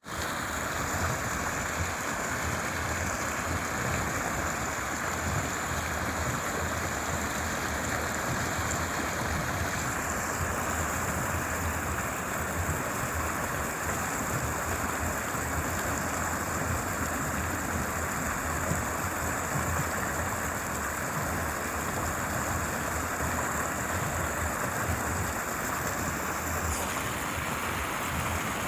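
Stream water flowing and babbling steadily, an even rushing with no breaks.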